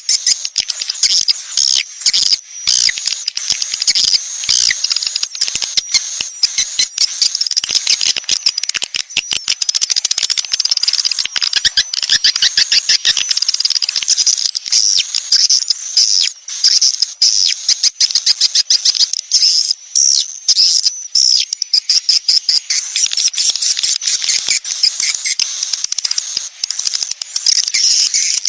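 Swiftlet (walet) colony twittering: a dense, continuous stream of rapid high-pitched chirps and trills. This is a swiftlet lure call of the 'sedot anakan' kind, meant to draw young swiftlets into a swiftlet house.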